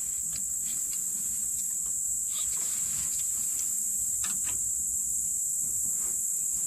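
Steady, high-pitched drone of an insect chorus, with a few faint clicks and knocks scattered through it.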